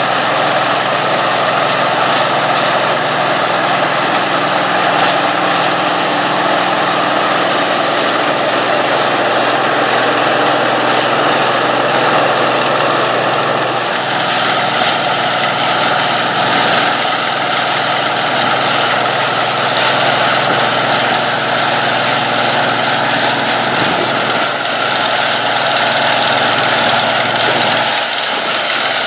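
John Deere 55 EB self-propelled combine running steadily as it harvests soybeans: engine and threshing machinery together. The tone shifts about halfway through.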